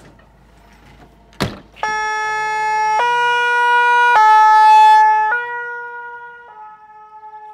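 A French fire-brigade rescue van's two-tone "pin-pon" siren starts about two seconds in. It alternates between a high and a low note about once a second, grows louder, then fades. A single thump comes just before it.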